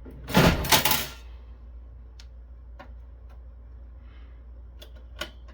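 A stuck heatsink being pried off a network switch's circuit board: a loud burst of sharp cracking and clattering about half a second in, then a few light clicks of the tool against metal and board.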